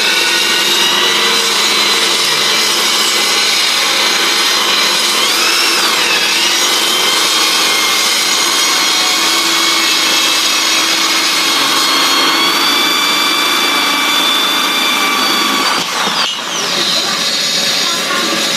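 Electric drill driving a jigsaw adapter, its blade sawing steadily under the drill motor's whine. The whine dips in pitch briefly about five seconds in, and the sound falters near the end.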